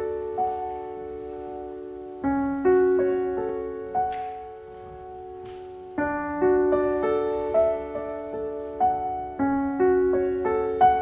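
Piano playing a slow, gentle classical piece: broken chords whose notes ring and fade, with a new chord struck every three to four seconds.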